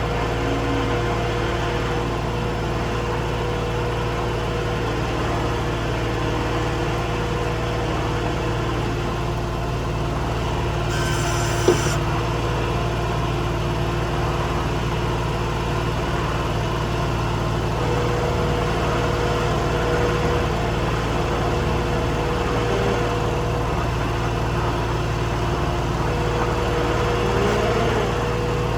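Skid steer's diesel engine running steadily, with one sharp knock about twelve seconds in.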